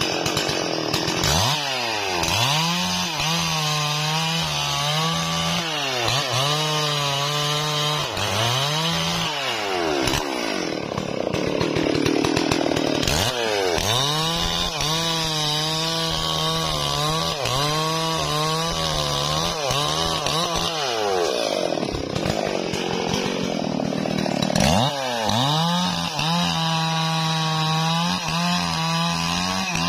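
Stihl MS440 two-stroke chainsaw cross-cutting a log. It revs up to full throttle three times, holding a steady high pitch through each cut, and falls back to a lower, rougher note between cuts about ten and twenty-two seconds in.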